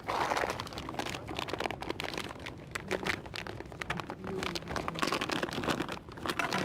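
Rustling and crinkling handling noise with many small clicks, close to the microphone.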